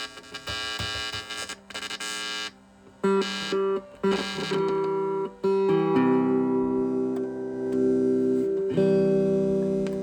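Squier Stratocaster electric guitar played through an amplifier to test its pickups: a few harsh, buzzy strums in the first couple of seconds, then chords and notes ringing out. The pickups are working.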